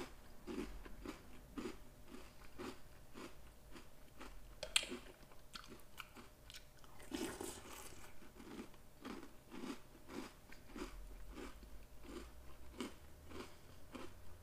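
Chewing a mouthful of Oreo O's cereal in milk: a steady rhythm of soft, crunchy chews, with one sharp click about five seconds in.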